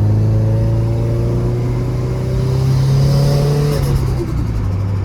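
Turbocharged Subaru WRX flat-four engine, tuned to about 400 hp, pulling under load with its pitch slowly climbing and a turbo whistle building. At about four seconds the throttle closes, the engine note drops and a brief turbo flutter follows.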